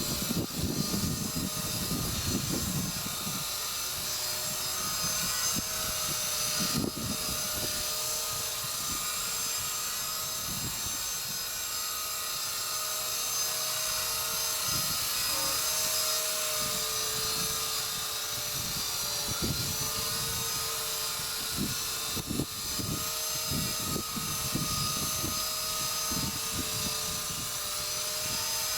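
Walkera V120D02S micro electric RC helicopter hovering: a steady whine of motor and rotors holding the same pitch. Gusts of wind rumble irregularly on the microphone underneath.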